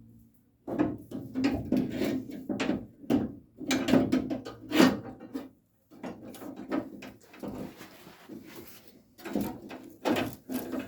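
Metal latch parts clunking and rattling against the inside of a 1968 Camaro's steel door shell as the latch mechanism is worked into place: a rapid series of knocks and clatters with a short pause about halfway.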